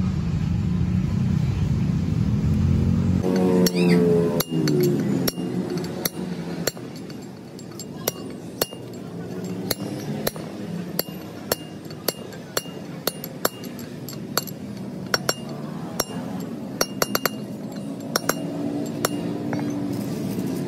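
Hammer blows on a steel socket-extension drift, driving the new wheel bearing race into the hub of an Isuzu Panther's front brake disc: sharp metallic clinks that ring, coming at an irregular pace, sometimes in quick runs. A low vehicle engine rumble cuts off about three seconds in.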